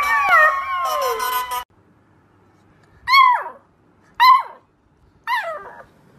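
A fluffy golden puppy howls, over other overlapping falling tones, until the sound cuts off abruptly about one and a half seconds in. After a pause, a beagle puppy gives three short howling yelps about a second apart, each falling in pitch.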